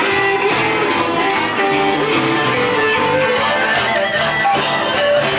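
Blues music: electric guitar playing over a steady drum beat.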